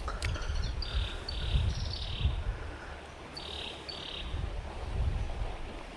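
An insect calling in short buzzy chirps, some in quick pairs, with a few pauses between them, over a low rumble. Two sharp clicks at the very start.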